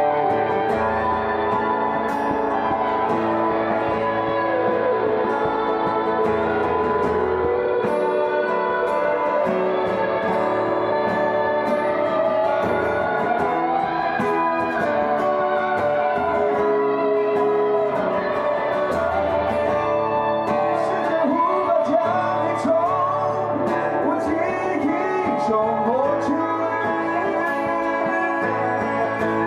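Small live band of guitars, electric among them, playing together over a low bass line, with a man singing into a microphone.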